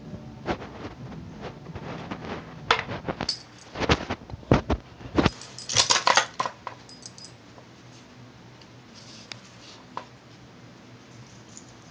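A dog's metal collar tags jingling and clicking, with knocks as the dog noses a carved wooden dog figure and tips it over. The clicking is densest about six seconds in, then thins to a few faint clicks.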